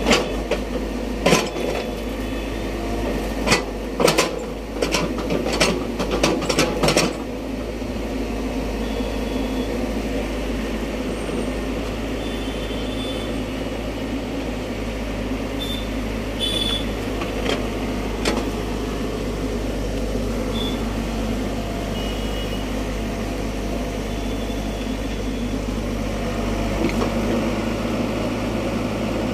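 Diesel engine of a compact crawler excavator running steadily under load while it digs a trench. In the first seven seconds or so there is a string of sharp knocks and scrapes as the bucket works through the soil.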